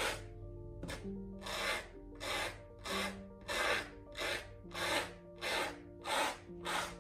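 A paint tool scrubbed back and forth over a dry, textured canvas: rasping strokes in a steady rhythm, about one and a half a second, over soft background music.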